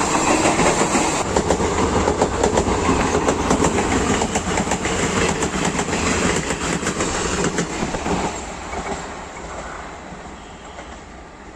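A train running past close by, its wheels clattering over the rail joints in quick clicks, then the sound dropping away and fading as it recedes about eight seconds in.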